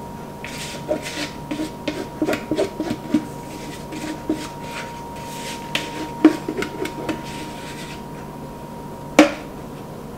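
Spatula scraping cake batter from the sides of a mixing bowl in a quick, irregular run of short scrapes, then a single sharp knock near the end.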